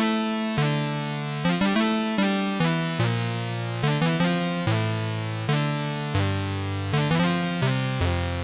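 Roland PROMARS synthesizer playing a preset: a line of low, bright notes, each struck sharply and then fading, stepping up and down in pitch two to three times a second, with the last note held near the end.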